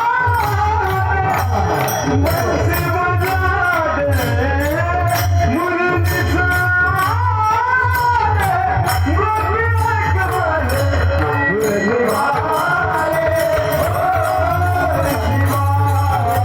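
A male singer performing a devotional bhajan in a long, gliding, ornamented melodic line, over a steady low drone, with jingling hand percussion keeping an even beat.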